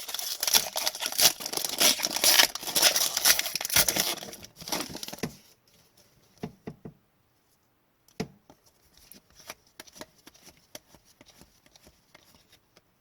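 Foil wrapper of an Upper Deck hockey card pack being torn open and crinkled for about five seconds, then stopping abruptly. After that come only quiet scattered clicks and taps as the cards are handled.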